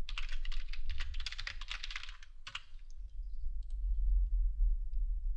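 Computer keyboard typing: a quick run of keystrokes for about two and a half seconds, then a few separate mouse clicks, over a low steady hum.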